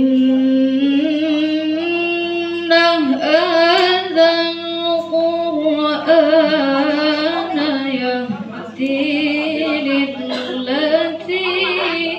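A woman's voice reciting the Quran in melodic tilawah style: long held notes with ornamented, wavering turns, phrase after phrase, over a faint steady hum.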